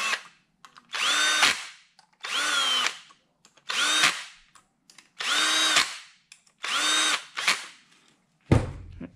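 Cordless drill-driver running screws into an aluminium oil pump body in about six short bursts, its motor pitch climbing quickly and then holding on each run. A single knock near the end.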